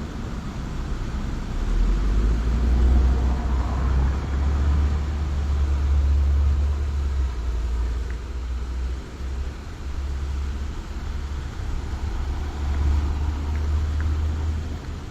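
Low rumble of passing road traffic that swells and eases, with a steady hiss above it.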